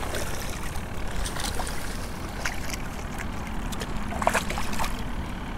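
Water splashing and lapping beside a kayak as a hooked bass thrashes at the surface, with a few short sharp splashes or knocks at about one and a half, two and a half and four seconds in.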